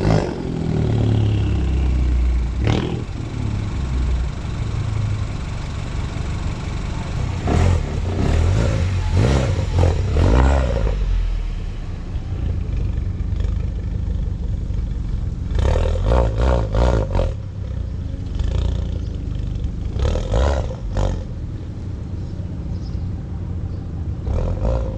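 Mini Cooper S's 1.6-litre turbocharged four-cylinder idling while it warms up after a coil pack replacement, with several louder, rougher stretches lasting a second or two.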